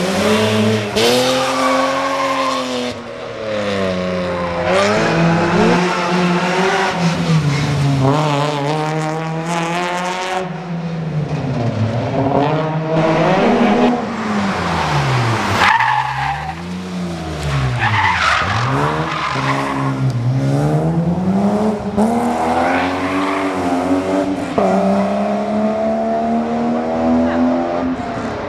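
Rally cars' engines revving hard as one car after another drives the stage. The pitch climbs and drops again and again as the drivers work through the gears.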